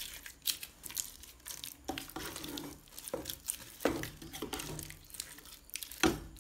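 A spatula stirring and scraping cooked, mashed jackfruit in an aluminium pot: irregular scrapes and knocks against the pot, a few a second, with a louder knock near the end.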